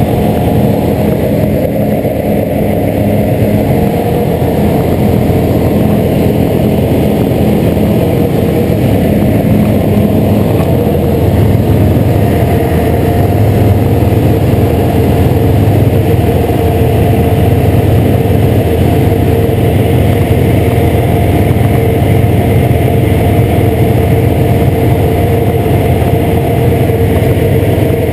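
Light aircraft's piston engine and propeller running loud and steady in cruise flight, heard from a camera mounted outside on the airframe.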